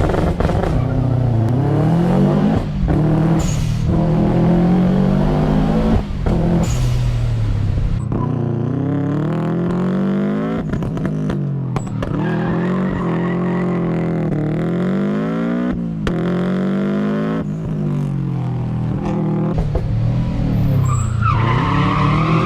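Subaru Impreza STI Type R's four-cylinder boxer engine pulling hard through the gears: the note climbs in a series of rising pulls and drops back at each shift or lift, several times over.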